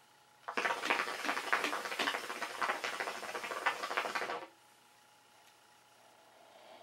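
Hookah water bubbling in a rapid, crackling patter for about four seconds as smoke is drawn through the hose, stopping suddenly. Near the end a faint soft blowing into the plastic bottle.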